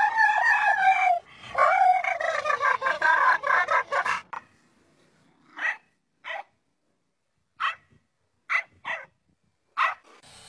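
A dog howls in long, loud, wavering cries for about four seconds. After a pause it gives about six short barks or yips, spaced roughly a second apart.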